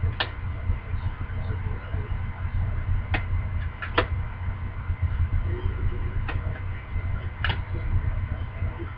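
Trading cards being handled and flipped through by hand, with several sharp clicks as the cards snap against each other, over a steady low hum.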